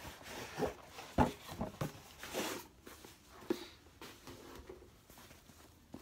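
Fabric dust bag and cardboard gift box being handled: soft rustling of cloth with a few light knocks and taps.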